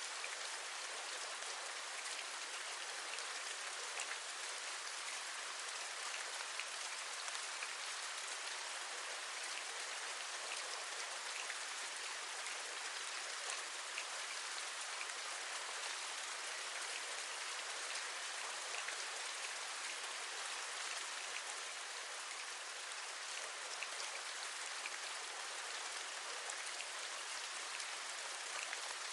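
Steady rain: an even hiss with faint, scattered raindrop taps.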